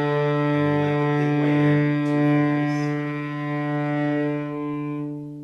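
Cello bowing one long, low sustained note, held steady and easing off near the end, played as a slow down-bow tone exercise that starts light.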